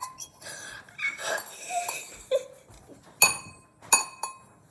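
Dishes clinking as a bowl is handled: sharp ringing clinks, three of them in the second half.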